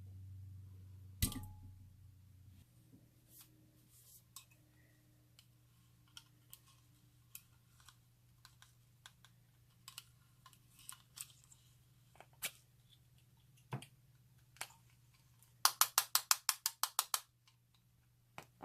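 Slime being handled and mixed: scattered sharp clicks and taps, a louder one about a second in, then a fast run of about ten clicks near the end.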